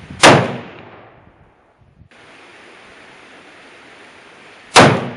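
Two shots from a French Berthier Model 1892 carbine firing 8mm Lebel (8x50R) rounds, one just after the start and one near the end, each a sharp crack with a short echoing tail.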